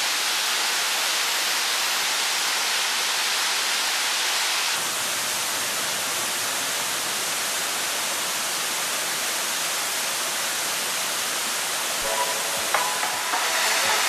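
Steady rushing of a forest stream and small waterfall pouring over rocks, an even hiss whose tone shifts slightly about five seconds in.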